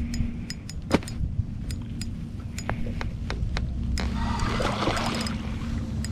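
Light spinning reel giving irregular sharp ticks as a hooked fish is played on light tackle, over a steady low rumble.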